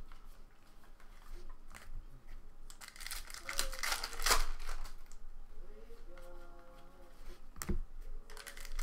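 Foil trading-card pack wrappers crinkling and tearing as packs are opened, with cards being handled. The crinkling comes in bursts, loudest about three to four and a half seconds in, with a short one near the end.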